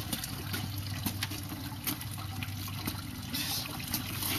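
Apple and grape juice streaming and trickling out of a fruit press, with scattered small clicks and knocks.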